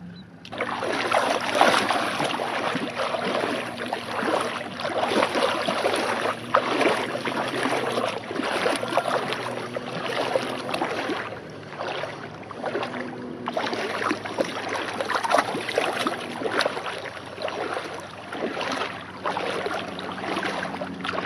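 Water splashing and sloshing as feet wade through shallow lake water: a German Shepherd puppy paddling along the shore. The splashes are quick, uneven and continuous, starting about half a second in.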